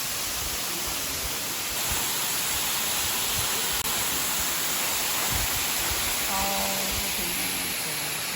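Waterfall close by: a steady, loud rush of falling water with no pauses.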